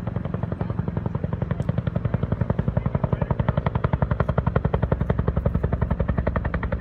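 Two-bladed Huey-type firefighting helicopter with a slung water bucket flying in low, its rotor blade slap beating at about eleven times a second and growing louder from about two seconds in as it comes closer.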